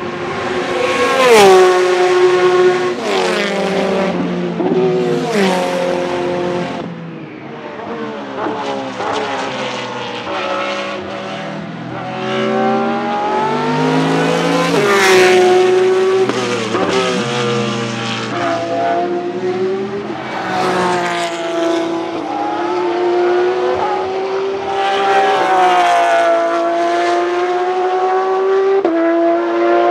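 Porsche 991.2 GT3 R race car with its 4.0-litre naturally aspirated flat-six and unmuffled straight exhaust, heard over several passes. Its pitch falls sharply as it brakes and downshifts, with sharp cracks between gears, then climbs as it accelerates away.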